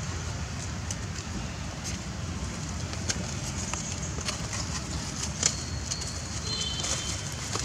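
Outdoor ambience: a steady low rumble of wind on the microphone, scattered small clicks and rustles, and a couple of thin, high bird calls near the end.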